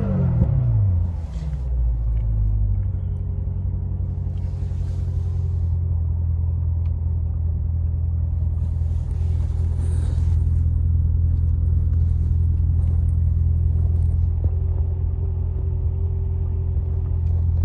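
2019 Corvette Z06's supercharged 6.2-litre LT4 V8 idling in park, heard from inside the cabin; the revs fall back to a steady idle in the first second.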